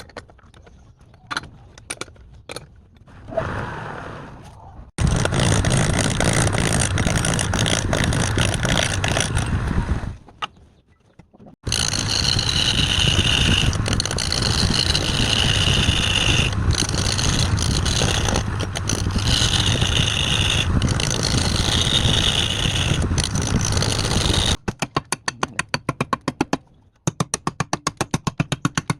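Wood lathe running while a turning tool cuts into the spinning wood: a loud, steady scraping with a wavering high whine. It comes in two long stretches with a brief pause between them, after a few clicks at the start, and gives way near the end to a fast run of even ticks.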